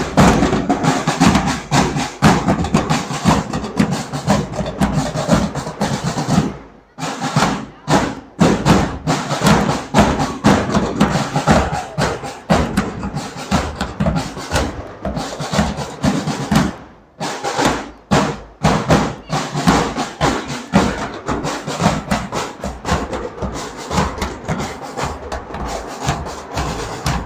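Marching drum band playing: bass drums and snare drums beating a fast, dense rhythm, breaking off briefly a couple of times.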